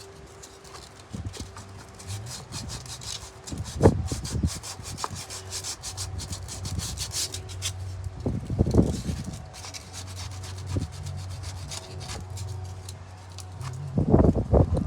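Hand sanding on a cured Bondo patch: quick, repeated abrasive rubbing strokes, broken by a few knocks, with more knocking near the end.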